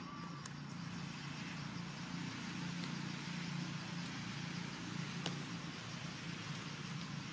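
Steady low hum of a distant engine running over an even outdoor hiss, with a single sharp click about five seconds in.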